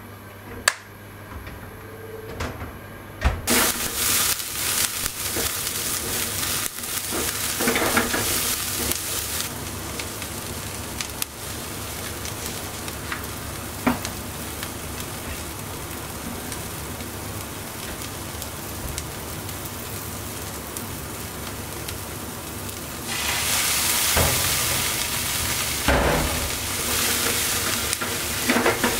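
Chopped shishito peppers frying in sesame oil in a nonstick frying pan. After a few clicks, a loud sizzle starts suddenly about three seconds in, as the peppers go into the hot oil, and keeps going steadily. Near the end it grows louder while the peppers are stirred around the pan.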